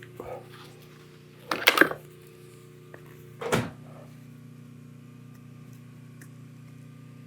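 Parts being handled and set down while the Onewheel is reassembled. There are two short clattering knocks, the louder about a second and a half in and another about two seconds later, over a steady low hum.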